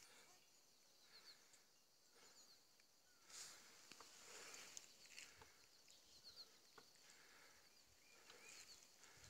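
Near silence: faint outdoor ambience on a wooded hillside, with a few soft clicks.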